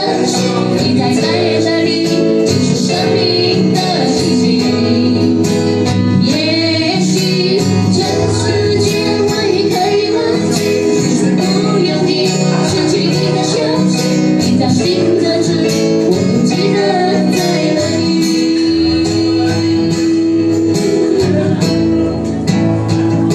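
Live band playing a song: a woman singing through a microphone over a strummed acoustic guitar and an electronic keyboard.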